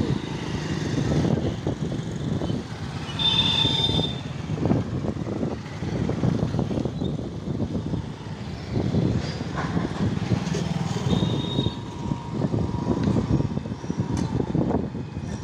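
Container freight train rolling across a railway bridge, its wagon wheels rumbling and clattering over the rails without a break.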